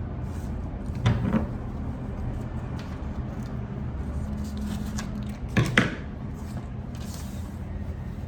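Two short bouts of handling noise, knocks and rustles, about a second in and again a little before six seconds in, over a steady low hum.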